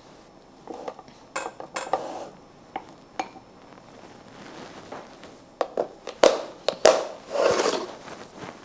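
Kitchen handling sounds of a wooden spoon and a plastic food-storage container: scattered light knocks and scrapes as seasoning is spread over stacked perilla leaves. In the second half come a few sharper plastic clicks and a brief rustle.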